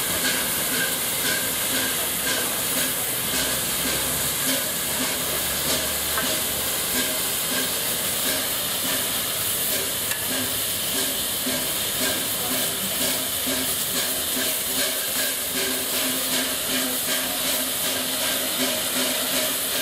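LNER A4 Pacific steam locomotive standing with steam hissing steadily from it.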